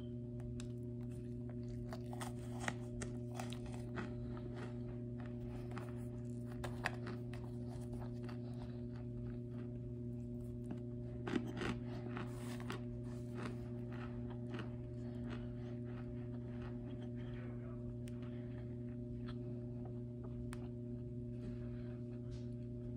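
Hands squeezing and crumbling chunks of cornstarch in a glass dish: irregular crisp crunches and powdery crumbling, thickest in the first half with the sharpest snaps about eleven seconds in. A steady low hum runs underneath.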